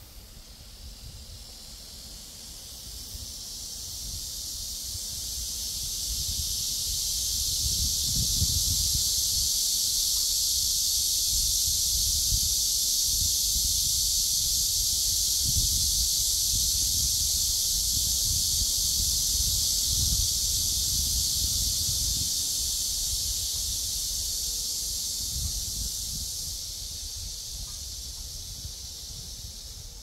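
A cicada chorus, a high, even buzz that swells over the first several seconds, holds loud, then fades near the end. Gusts of wind rumble low on the microphone throughout.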